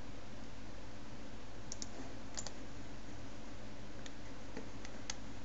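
About half a dozen scattered clicks of a computer keyboard and mouse, entering shortcuts and dragging to scale and move an object in Blender, over a steady low hum and hiss from the recording.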